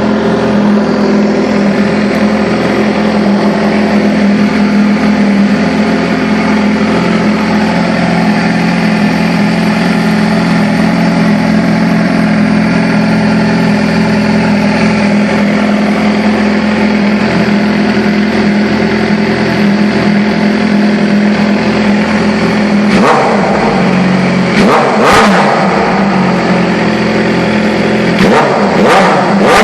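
Suzuki GSX-R 750 K9's inline four-cylinder engine running steadily through its exhaust, then revved hard in several sharp throttle blips over the last few seconds.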